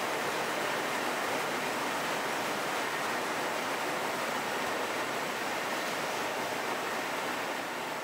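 Steady, even rushing noise with no rhythm or tones.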